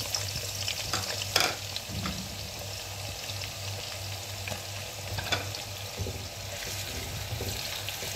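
Sliced onions sizzling steadily in hot oil in a nonstick wok, with a few short scrapes and knocks of a spatula stirring them. A steady low hum runs underneath.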